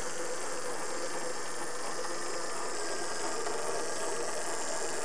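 The twin turbine engines of a Eurocopter AS355F1 helicopter running on the ground, a steady whine with a hiss.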